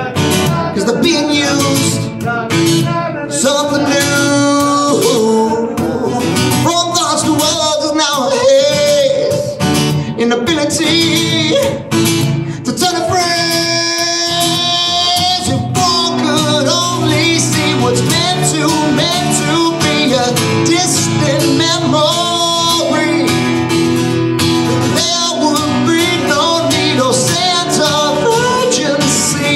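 A man singing into a microphone while strumming an acoustic guitar, a live solo song, with one long held note about halfway through.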